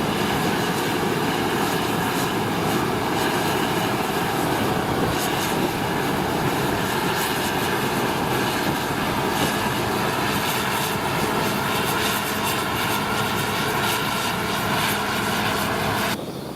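New Holland TX-series combine harvester running steadily while cutting oats: a constant engine drone mixed with threshing machinery, with a few steady tones. It cuts off suddenly near the end.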